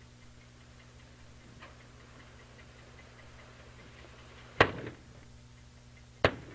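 Two short, sharp bangs about a second and a half apart, two-thirds of the way through: explosive charges for road-cutting being set off. Under them are a faint steady hum and a faint rapid ticking.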